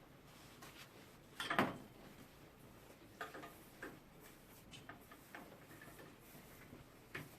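Hands handling hard objects: one louder clatter about a second and a half in, then scattered light clicks and knocks.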